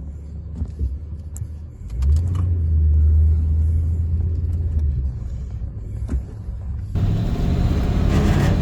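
1965 Chevy C10 pickup driving on the road: a low engine and drivetrain rumble that swells for a few seconds, with a few light clicks and rattles. About seven seconds in, louder road noise comes in suddenly.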